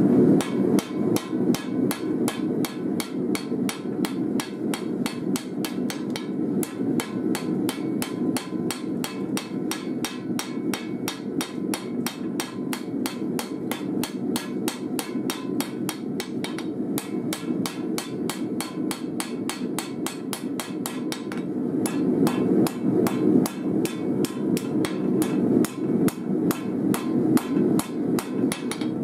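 Hand hammer striking a red-hot steel blade on an anvil, forging a knife from an old file: a long run of rapid, evenly paced blows with a few short breaks.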